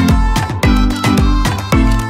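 Background music with a steady beat of about two deep drum strokes a second under held instrumental tones.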